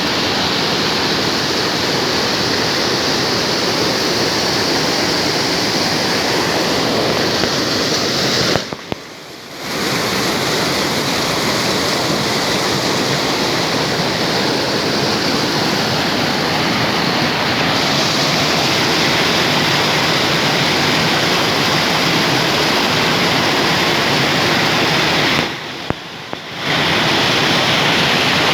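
Mountain spring water rushing in a loud, steady stream, dropping away briefly twice.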